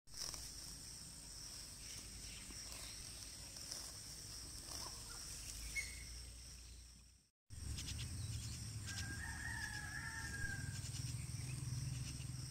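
A rooster crowing once, about nine seconds in, a single call of under two seconds, over a steady high-pitched drone.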